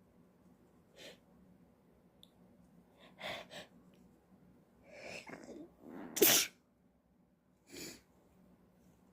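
A woman sneezes once, loudly, about six seconds in. Short breaths come before it, with a few quick catching inhales just ahead of the sneeze, and another short breath follows it.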